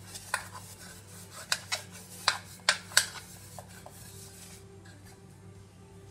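Greased aluminium baking tin handled and set down on the counter: about half a dozen sharp metallic taps and clinks over the first three seconds, a couple of lighter ones after, then quiet handling.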